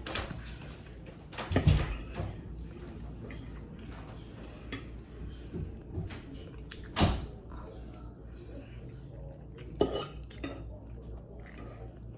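Cutlery clinking and scraping against a plate while someone eats, with a few sharper clinks about two, seven and ten seconds in.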